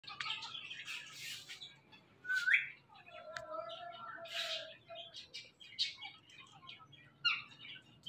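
Rose-ringed parakeets calling: a string of short, high chirps and squawks, with a loud, sharply rising screech about two and a half seconds in and a lower, drawn-out wavering call a little after.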